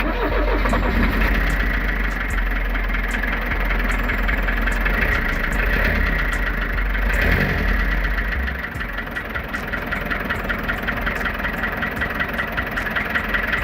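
Mitsubishi 4DR5 four-cylinder diesel engine idling, its valve tappet clearances freshly adjusted. About eight seconds in the low rumble drops and it settles into an even pulsing beat.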